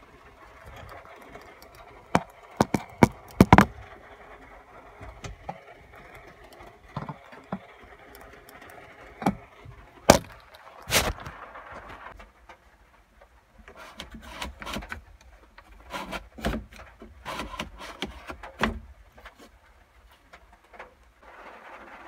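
Hands and tools working on a truck's plastic dashboard trim: scattered sharp clicks and knocks with quieter scraping between. The loudest knocks bunch together a few seconds in and again around the middle.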